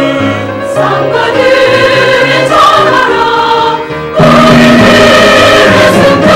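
Church choir singing, growing louder and fuller about four seconds in.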